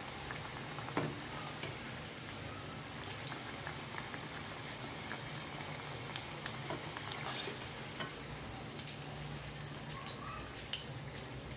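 Alu vadi deep-frying in hot oil in a small steel kadhai: a steady sizzle with scattered small crackles and a few louder pops.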